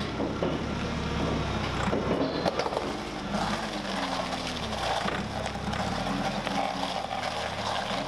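Forklift engine running as it drags a Sherman tank track across concrete on a strap, with the track links clanking and knocking throughout.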